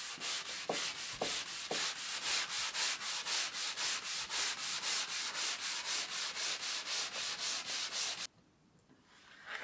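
Wood being worked by hand with rapid back-and-forth abrasive strokes, about four a second, that stop sharply near the end.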